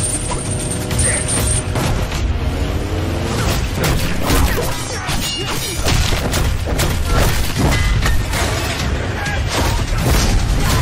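Action-trailer sound mix: music under a dense run of booms, hits and crashes, one after another over a heavy low rumble.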